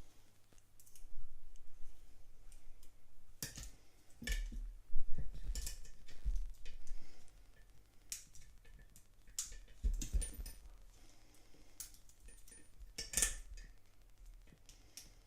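Small metal lock-pick tools and a padlock being handled: scattered sharp clicks, taps and knocks, a few louder ones about four, five and ten seconds in, with quieter rattling between.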